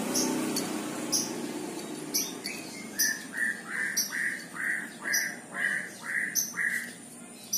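Birds calling: one repeats a short, slightly falling note about nine times, roughly twice a second, from about three seconds in, over sharp high chirps that recur about once a second. A low rumble fades out over the first couple of seconds.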